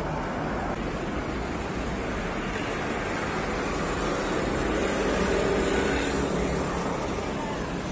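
Steady urban traffic and street noise, a low rumble of passing vehicles, growing a little louder about five seconds in.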